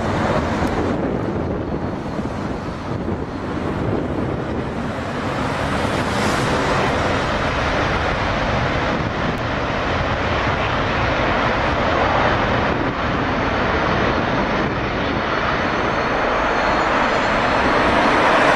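Jet aircraft engine noise: a loud, steady, dense rush that grows a little louder over the second half.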